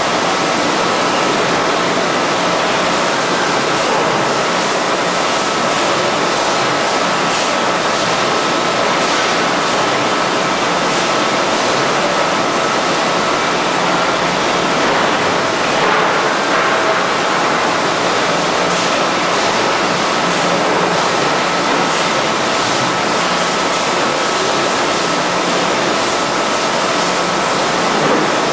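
Steady machine noise of an automated 5-gallon bottling line: a constant loud hiss with a faint steady whine, and faint clicks now and then.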